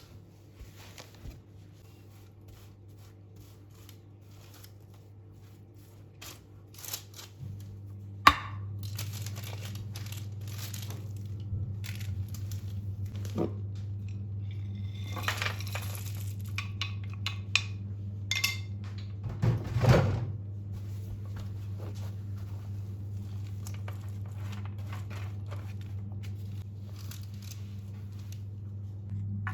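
Packaging crinkling and tearing with small knocks and clinks of hands at work in a kitchen. A steady low hum comes on about a quarter of the way in, with a sharp knock just after it and a louder rustle about two-thirds of the way through.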